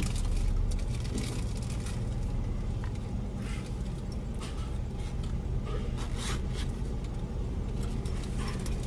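Car engine idling, heard from inside the cabin as a steady low hum, with a few short, faint clicks and rustles.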